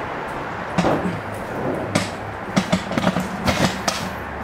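Footsteps knocking irregularly on a wooden floor, about seven or eight thuds, over a steady low electrical hum.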